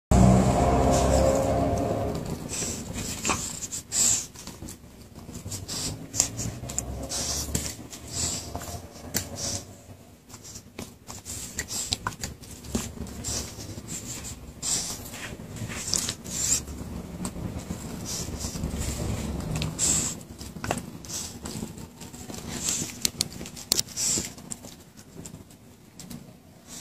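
A Rottweiler licking a cat's fur: irregular wet licking and smacking clicks. A louder pitched sound in the first two seconds.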